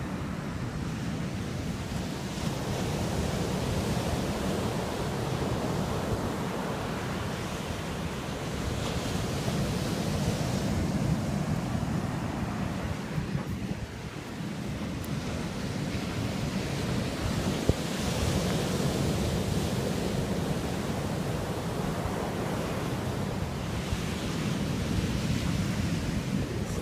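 Ocean surf breaking and washing up the beach, a steady rush of noise, with wind blowing across the microphone.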